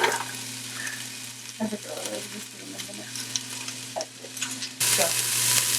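Onions sizzling as they fry in a pot sprayed with cooking oil, with a few light clicks. The sizzle jumps suddenly louder near the end.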